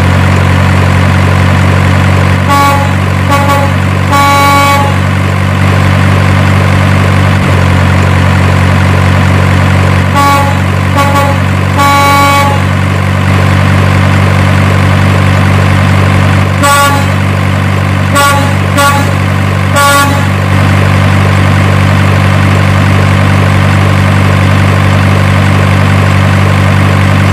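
A truck engine's steady, loud drone with horn blasts, short and long, sounding in three clusters. These are likely truck sound effects laid over the toy-truck convoy.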